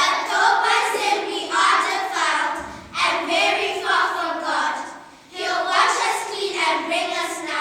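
Children's voices singing together in short phrases, with brief breaks between them.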